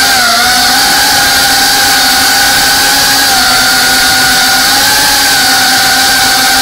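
Brushless motors and ducted propellers of a GEPRC CineLog35 FPV cinewhoop drone, heard from its onboard camera: a loud, steady whine with a hiss, its pitch dipping and rising slightly as the throttle changes in flight.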